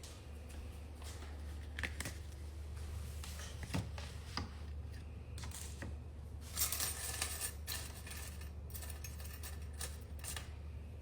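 Scattered small clicks and light knocks over a steady low hum, with a denser run of clicking about six and a half seconds in.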